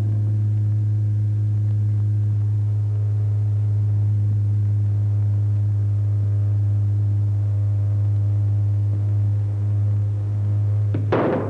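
AC electromagnetic levitation coil holding an aluminium ball suspended, giving a loud, deep, steady hum with a row of overtones. A short noisy knock near the end.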